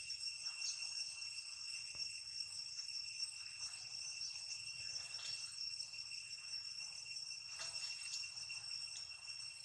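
Steady, high-pitched drone of insects in the vegetation, unbroken throughout, with faint scattered rustles.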